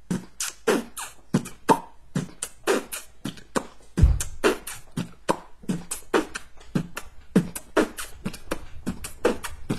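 A man beatboxing: mouth-made clicks, pops and hissing hits in a quick, steady rhythm, with a deep bass boom about four seconds in.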